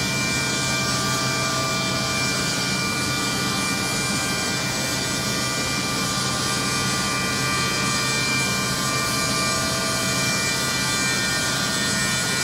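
Woodmaster 5-axis CNC machining centre running, its spindle giving a steady high-pitched whine over a rushing hiss while it works a wooden panel.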